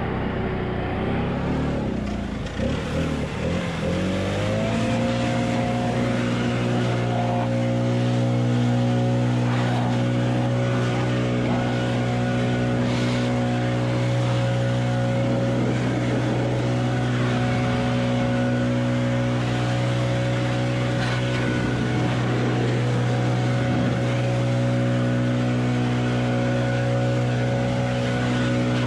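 Handheld leaf blower blasting dust and dry grass off a tractor and bush hog deck. It runs unevenly for the first few seconds, then spins up with a rising pitch and holds a steady, loud whine at full speed.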